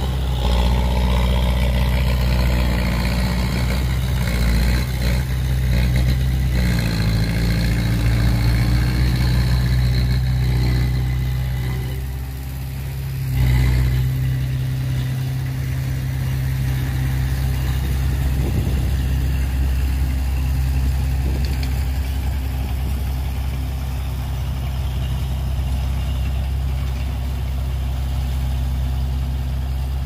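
Heavy construction vehicle's diesel engine running steadily, with a deep hum. It eases off briefly about twelve seconds in, then picks up sharply a second later and settles back into a steady run.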